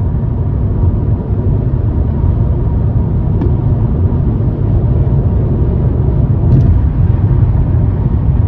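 Steady low road-and-engine rumble inside a car cruising on a freeway, with a few faint short clicks.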